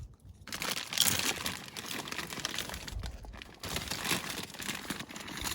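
Plastic snack bag of vegetable chips crinkling as it is handled, with a dense crackle from about half a second in.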